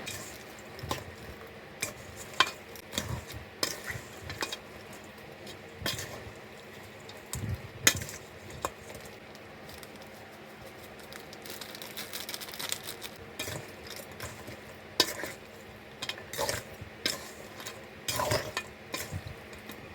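Lobster pieces being mixed with dry seasonings in a container: irregular light clicks and knocks of shell and container, with a few sharper knocks now and then.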